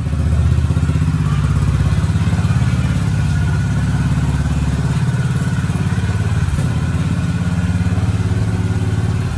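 Honda motorcycle engine idling steadily, a low, even pulsing with no revving.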